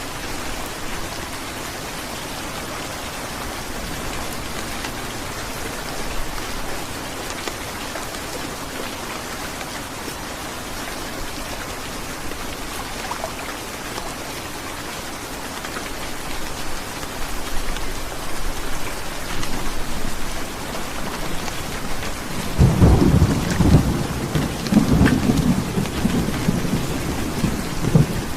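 Heavy rain falling steadily. About 22 seconds in, a deep rumble of thunder rolls in, louder than the rain, and goes on to the end.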